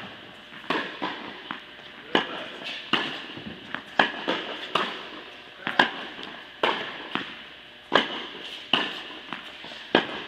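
Tennis balls struck by rackets in a quick volley exchange, a sharp pop every half second to a second, each echoing briefly in an indoor tennis hall.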